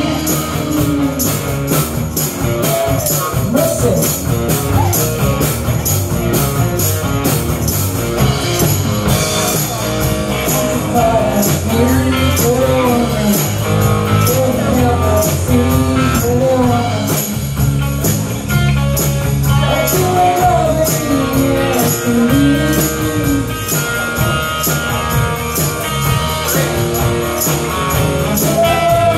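Live rock band playing: electric guitar and bass over a steady beat, with a tambourine shaken along.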